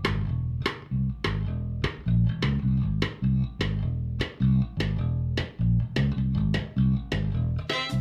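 Music: bass and guitar playing a steady plucked rhythm, about two strokes a second.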